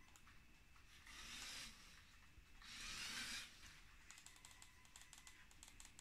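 Faint clicking of a small handheld wireless keyboard's keys being pressed, a quick run of clicks in the second half. Two brief swells of soft hissing noise stand out louder around a second and three seconds in.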